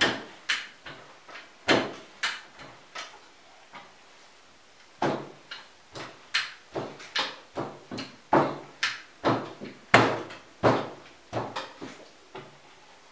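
Rolling pin rolling strudel dough back and forth on a floured wooden pastry board: a quick run of rolling strokes and knocks against the board, about two a second, with a pause of about a second roughly a third of the way in.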